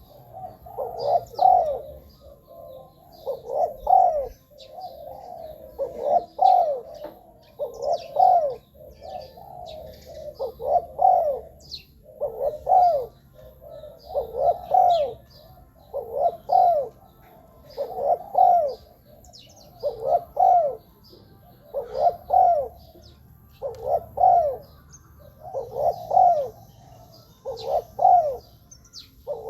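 Spotted dove cooing its phrase over and over, about once every two seconds, with faint chirps of small birds.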